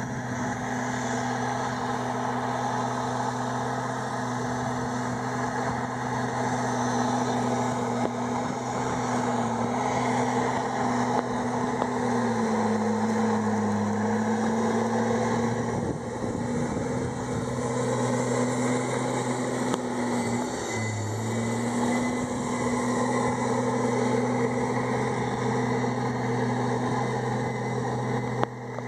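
Komatsu D51EX bulldozer's diesel engine running steadily at working revs, its note dipping briefly twice as it lugs under load.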